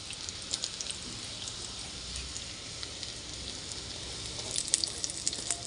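Breaded cutlets shallow-frying in hot oil in a kadai: a steady sizzle with scattered crackles and spits, the crackles coming sharper and more often near the end.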